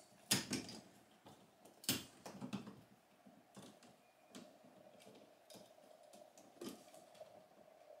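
Utility knife cutting through sheetrock: a few short, faint scraping strokes and knocks, the sharpest about a third of a second and two seconds in, over a faint steady hum.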